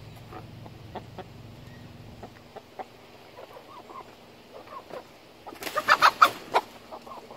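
Chicken hens clucking softly and intermittently, then a loud burst of squawking about six seconds in as a hen is grabbed and picked up.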